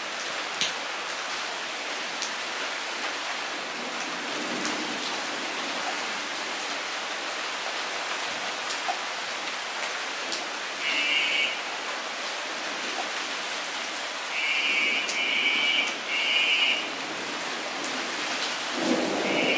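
Steady rain falling into a shallow puddle on a paved floor: an even hiss with scattered splashes of single drops. Brief high-pitched trills stand out over it, one near the middle and three in quick succession later.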